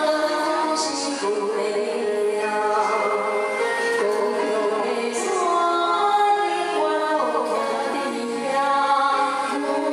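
A woman singing a slow Taiwanese Hokkien enka-style ballad into a handheld microphone over instrumental backing music, holding long notes.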